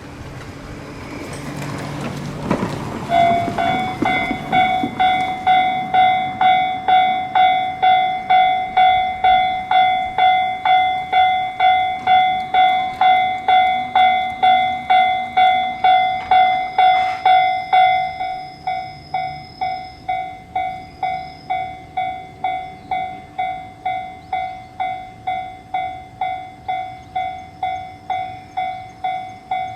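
A rushing noise swells over the first couple of seconds, then a level crossing's warning bell starts clanging steadily, about two strikes a second. About 18 seconds in the bell drops noticeably in volume and keeps ringing.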